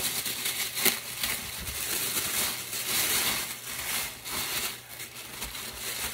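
Tissue paper rustling and crinkling as it is unfolded by hand from around a leather bag, with a sharper crackle about a second in.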